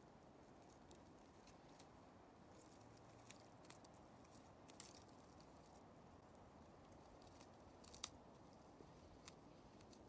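Near silence: a faint steady hiss with a few faint, sharp clicks scattered through it, the sharpest about eight seconds in.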